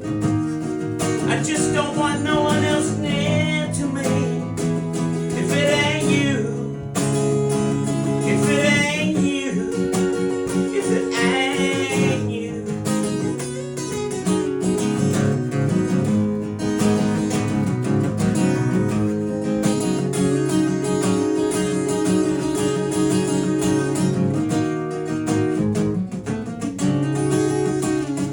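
Acoustic guitar strummed and picked through a break between sung verses of a country-style song. A wavering melody line runs over it for roughly the first thirteen seconds, then the guitar carries on alone.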